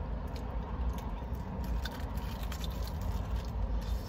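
Close-up eating sounds of crispy fried chicken: scattered crackles of the breaded skin being pulled apart and bitten, with wet chewing. Under it runs a steady low rumble.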